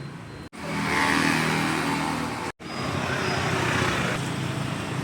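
Motor vehicle engine running close by, with road noise. The sound cuts out abruptly twice, about half a second in and about two and a half seconds in, where the footage is cut.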